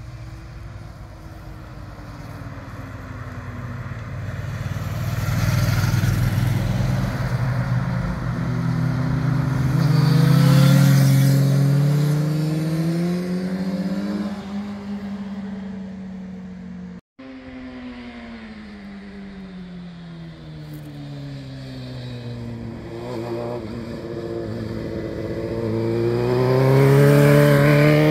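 Motorcycles riding one after another through a hairpin bend, their engines rising in pitch as they accelerate out of the corner and falling as they back off. It is loudest about ten seconds in, then after a brief dropout around seventeen seconds another bike's engine climbs again as it accelerates through the bend near the end.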